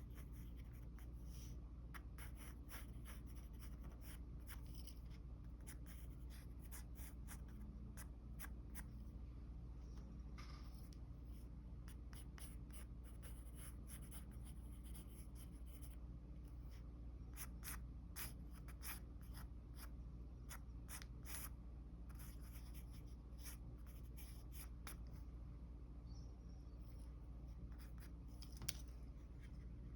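Mechanical pencil sketching on paper: many short strokes scratching at an irregular pace, over a steady low hum.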